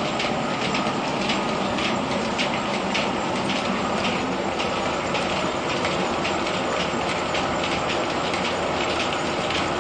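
Grain mill's threshing machinery running with a steady, dense rattling clatter.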